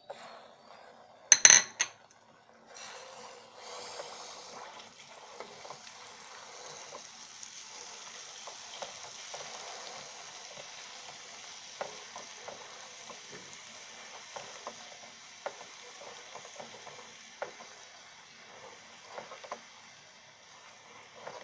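Ground sprouted fenugreek seeds sizzling in warm coconut oil in a small metal bowl over a gas flame while being stirred with a spoon. A few sharp clinks of the spoon on the bowl come about a second and a half in, then a steady sizzle with light scraping ticks from the stirring.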